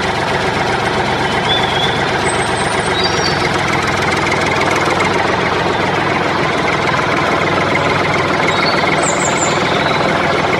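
A tractor's diesel engine running steadily at idle, with a few faint bird chirps over it.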